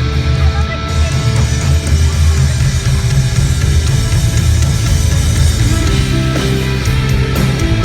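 Live rock band playing an instrumental passage: distorted electric guitars, bass and drums, loud and continuous, with no singing.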